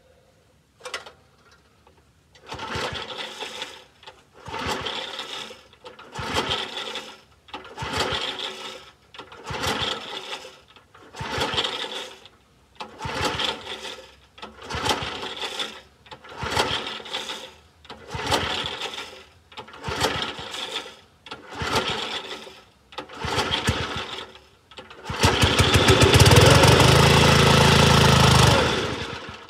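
Log splitter's small gas engine being pull-started: about thirteen recoil pulls, one every couple of seconds, each turning it over without it catching. Near the end it fires and runs for about three seconds, then stops. The owner takes the trouble for a carburetor fault and plans a new carburetor diaphragm.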